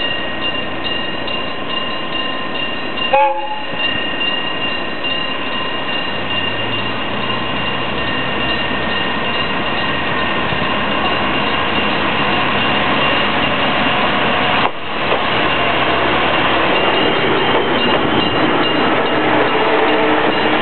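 An electric-bell level crossing warning ringing continuously, a rapid metallic ring from the bell's struck gong. About three seconds in a diesel railcar gives a short horn blast, then from about six seconds its engine note rises as the two-car train pulls away, the running noise growing louder toward the end.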